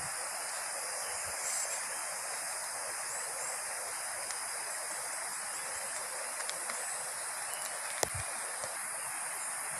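Steady rushing of flowing water from a river or stream, with faint high chirps above it. A sharp tick and a low thump come about eight seconds in.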